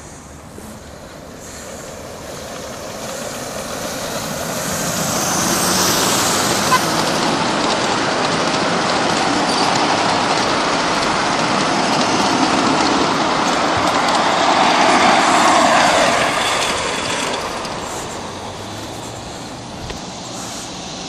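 Ride-on miniature train of a 46 class locomotive and fourteen carriages rolling past on the track, a steady rumble of wheels on the rails. It grows louder over the first few seconds as the carriages come by, is loudest a little past the middle, then fades as the train draws away.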